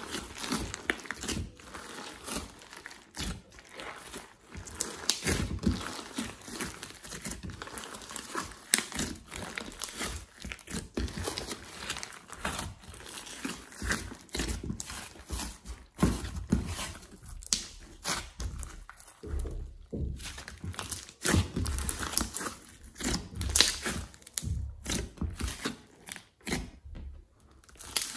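Hands kneading, squeezing and stretching a large mass of slime mixed with clay in a glass dish: a continuous run of irregular wet squishes and sharp crackling clicks.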